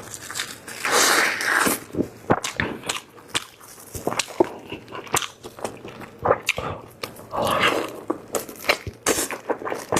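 Close-miked eating of braised chicken drumsticks: biting and chewing with many small wet mouth clicks, and two longer rushing stretches, about a second in and again near eight seconds.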